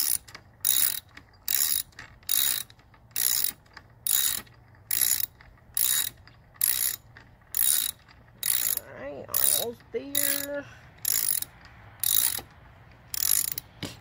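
Hand ratchet with a T30 Torx bit being swung back and forth to tighten a bolt, giving a short burst of ratchet clicking on each return stroke, about once a second.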